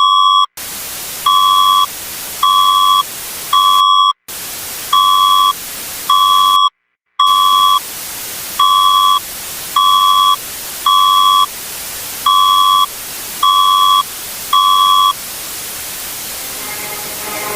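Simulated emergency-alert beeps: short two-pitch electronic tones repeating about once a second over a steady static hiss, with three brief total dropouts. The beeps stop about 15 seconds in, leaving only static.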